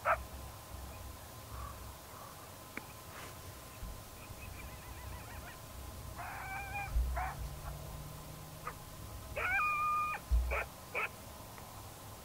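Coyote pup distress sound from an electronic predator caller: high whining cries and short yips, a few seconds apart, with two longer drawn-out cries in the middle.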